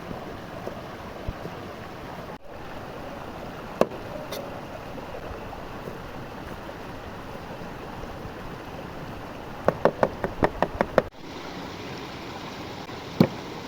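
Steady rushing of running water, with a single knock about four seconds in, a quick run of about eight knocks near ten seconds, and one more knock near the end.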